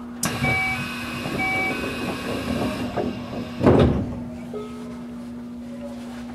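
Electric commuter train running noise heard from the driver's cab, over a steady low hum, with two short electronic beeps about a second apart early on and a loud brief rush about three and a half seconds in, after which only the hum remains.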